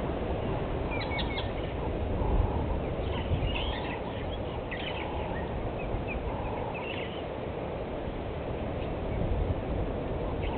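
Wild birds giving short bursts of chirping calls, in several scattered groups, over a steady low rumbling background noise.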